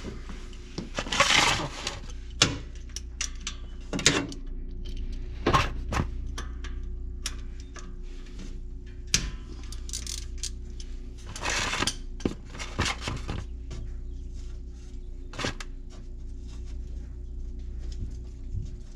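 Irregular metallic clinks, clicks and short scrapes of a hand tool: an Allen wrench being fitted to and worked on a 6 mm Allen-head oil drain plug.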